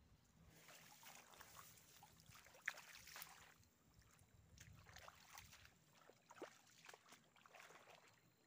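Faint splashing and lapping of shallow river water at the bank, in irregular small bursts, with one sharper click about three seconds in.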